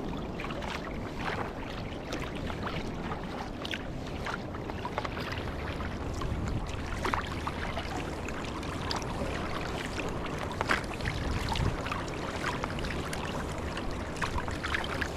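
Choppy lake water splashing and slapping against a kayak's hull and paddle, with irregular small splashes over a steady wash of waves.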